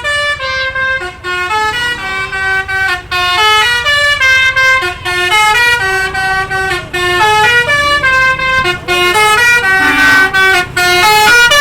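A bus's basuri musical air horn (klakson telolet) playing a loud melody of held notes that step up and down, about two notes a second, with short breaks between phrases.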